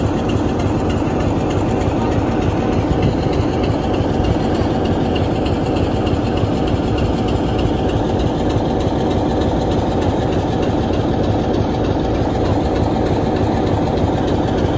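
Class 47 diesel locomotive 47802 idling steadily while standing, its Sulzer twin-bank 12-cylinder engine running at a constant, unchanging level.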